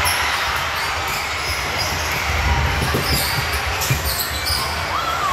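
Basketball game in a large gym: a ball bouncing on the hardwood in a few sharp knocks over a steady din of hall noise, with a short sneaker squeak near the end.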